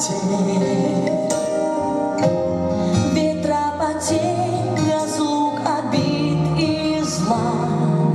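Choral ensemble singing a song, with several voices holding sustained notes together and moving from note to note.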